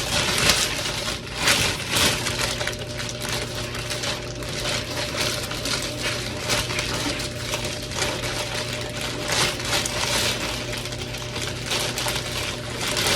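Irregular rustling, crinkling and scraping of the shirt and its plastic security tag being handled, over a steady low hum.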